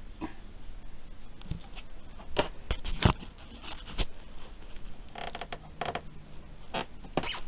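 Handling noise close to the microphone: an irregular string of small clicks, knocks and brief rustles, the loudest a sharp knock about three seconds in, with a cluster of scraping rustles around five to six seconds.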